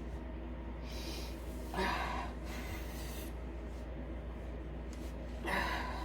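A person breathing audibly: two short, breathy gasps, one about two seconds in and one near the end, over a steady low hum.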